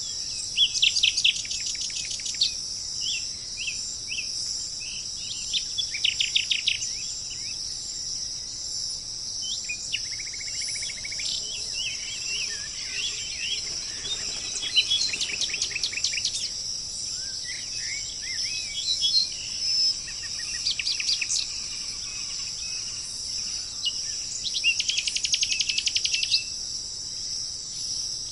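Songbirds singing over a steady high chorus of crickets: several fast trilled phrases of a second or two, about four times, mixed with scattered short chirps.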